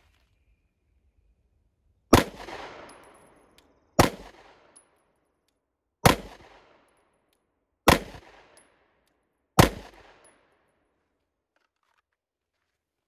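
Walther PDP F-Series 9mm pistol fired five times in slow, deliberate succession, about two seconds apart. Each shot is a sharp crack with a short echoing tail.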